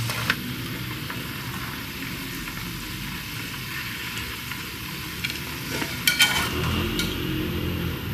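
Mutton pieces frying in hot ghee in a copper pot, a steady sizzle; the ghee has turned clear and the meat's water has cooked off. A few light clinks of a wire skimmer near the end as the meat is lifted out.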